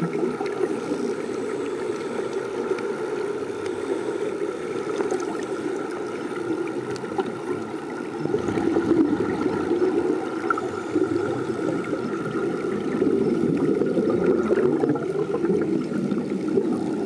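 Muffled underwater noise heard through a camera's housing: a steady rumbling wash with gurgling air bubbles, a faint steady hum, and small scattered clicks.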